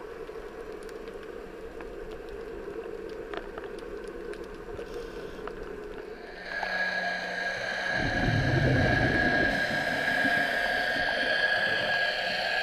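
Underwater sound through a dive camera's housing: faint scattered clicks at first. About six seconds in, a steady droning hum of several held tones sets in, a boat motor carried through the water. About two seconds after that comes a short low rushing burst.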